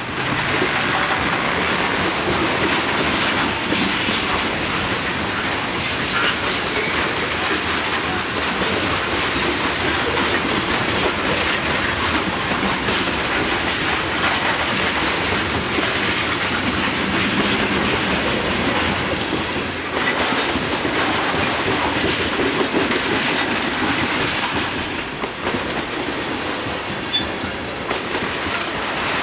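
Tank cars of a CSX manifest freight train rolling past close by: a steady rumble of steel wheels on rail with rhythmic clickety-clack and a faint wheel squeal, easing a little near the end.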